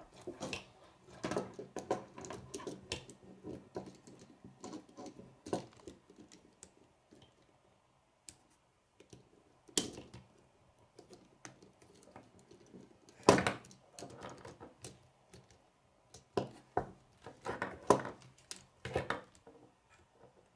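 K'nex plastic rods and connectors clicking and rattling as the model is handled and pieces are snapped together, with irregular knocks of the plastic on the wooden table, the loudest about two-thirds of the way through.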